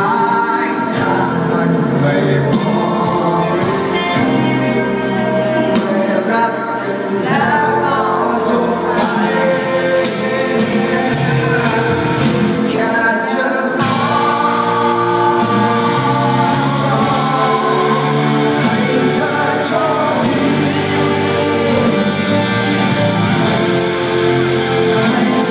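Live rock band playing with a lead singer, heard from the audience in a large hall.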